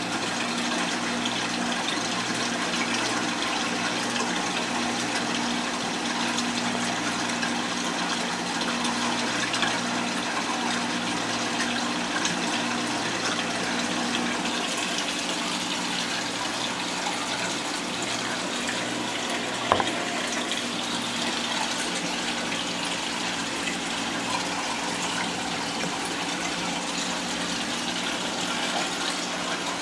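Steady rush and trickle of circulating water from a saltwater reef aquarium, with a faint low hum underneath. A single sharp click comes about twenty seconds in.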